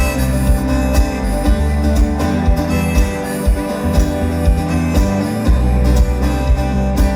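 Live folk-rock band playing an instrumental break: acoustic guitar and plucked strings over a steady kick-drum beat of about two thumps a second.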